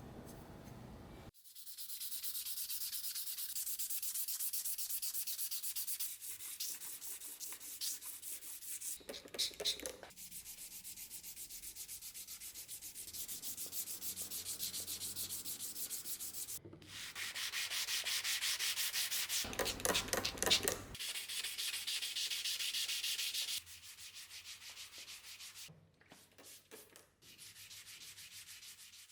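Abrasive being rubbed by hand over the steel blade of an old rusty pchak knife, in quick back-and-forth strokes, to clean off rust. The sound stops and restarts abruptly a few times, and the strokes are quieter near the end.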